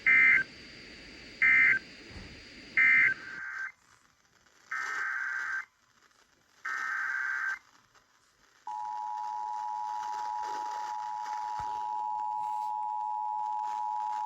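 Emergency Alert System SAME data bursts: three short loud bursts closing one warning (the end-of-message code), then two longer header bursts opening the next alert. About nine seconds in, the steady two-tone EAS attention signal starts and holds.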